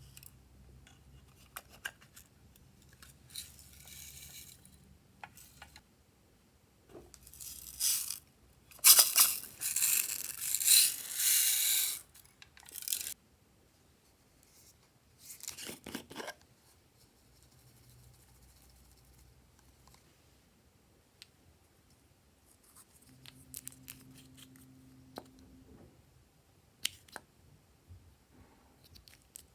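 Intermittent tearing and scraping noises, the loudest a run of about four seconds near the middle, with a shorter burst a little later.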